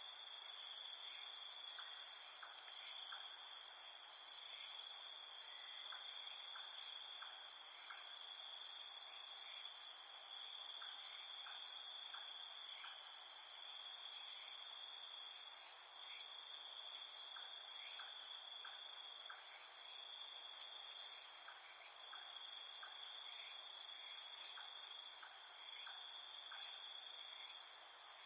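Chorus of crickets trilling steadily, layered at several high pitches, with faint short clicks scattered through it.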